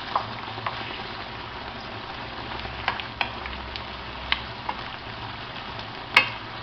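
Langoustines and shrimp sizzling as they fry in hot oil, a steady frying hiss. Scattered sharp clicks and pops sound through it, the loudest about six seconds in.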